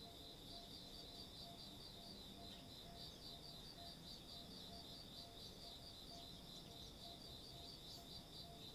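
Faint, steady insect chirring in an even rhythm of about five pulses a second, with a fainter repeated low note under it.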